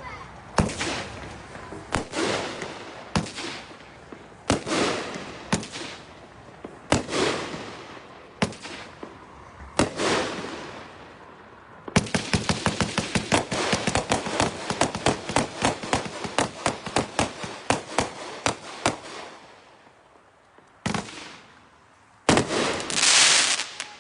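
Multi-shot consumer fireworks cake firing. Single shots come about once a second, each followed by a crackling tail. Then a rapid volley of about five shots a second runs for around seven seconds, followed by a few last shots and a loud burst of crackling near the end.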